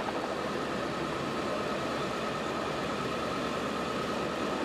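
Steady engine noise of an idling vehicle, with a faint constant high whine over it.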